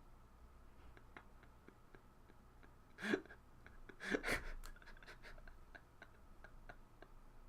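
Faint scattered clicks and light rustles of trading cards and their packaging being handled, with two short louder sounds about three and four seconds in.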